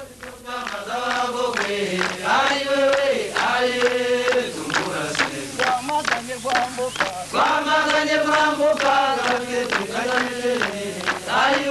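A group of men chanting a song together in repeated phrases, with long held notes.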